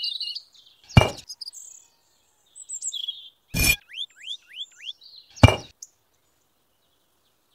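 Miniature clay bricks clinking sharply as they are set down, three clinks about two seconds apart, with birds chirping between them.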